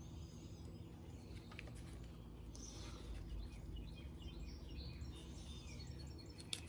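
Faint birds chirping in the background over a steady low hum, with a single sharp click near the end.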